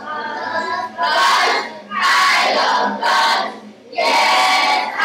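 Several voices shouting together in four loud bursts, about one a second, after a quieter stretch of voices.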